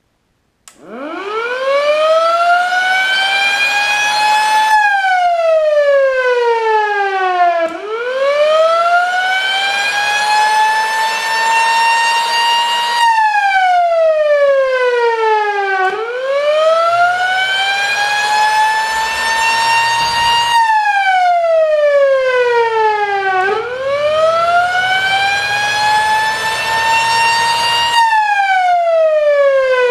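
Federal Model J electromechanical siren winding up and coasting down four times. Each time its wail climbs over several seconds to a high steady pitch, then slides down when the power is cut, before rising again.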